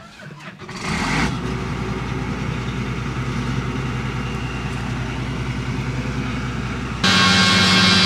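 A vehicle engine starts about a second in and runs steadily with an even low rumble. Near the end it cuts abruptly to a louder, steady droning hum of farm machinery.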